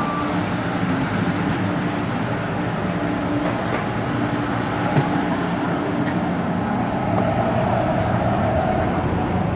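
Steady hum inside a passenger railcar, with a few light clicks and knocks around the middle.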